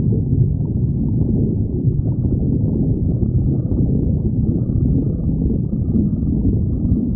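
A hungry human stomach growling: a steady, unbroken low rumble.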